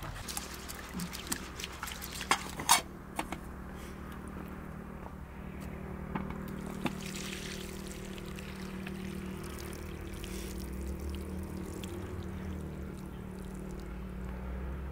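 Water poured from a metal kettle into a plastic basin as rice is rinsed by hand, with a few sharp knocks and clinks in the first three seconds.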